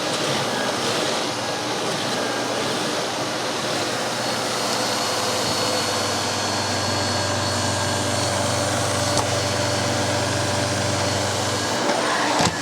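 Miele S5 Callisto canister vacuum cleaner running steadily, with a low hum that fades in and stops shortly before a short click near the end.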